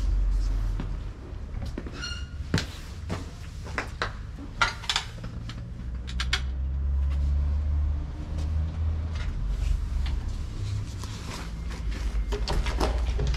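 Scattered knocks and clicks of someone walking about, and a brief squeak about two seconds in, over a steady low rumble on the microphone.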